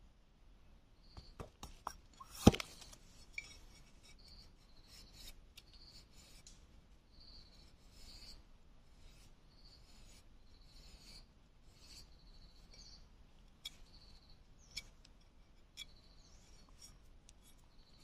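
Knife blade splitting and shaving a thin strip of bamboo: a run of short, dry scraping strokes, with a sharp crack about two and a half seconds in and a few smaller clicks later on.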